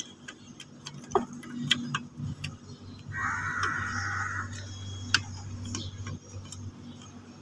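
Scattered light clicks and taps of a scooter's front shock absorber and its mounting parts being handled as the shock's lower eye is lined up with the bolt hole. A low hum and a short rasping noise come in for a few seconds in the middle.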